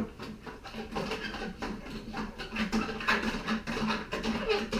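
Irregular, quick scratching and scrubbing as the broomed-out steel wire strands of a wire rope end are cleaned of oil and grease in degreaser.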